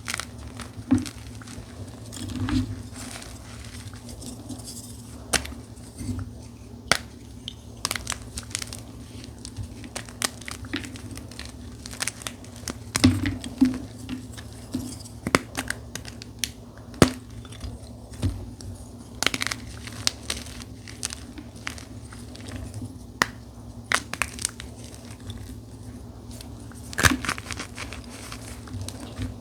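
Dyed gym chalk being crushed: irregular crunches and crumbling crackles, over a faint steady low hum.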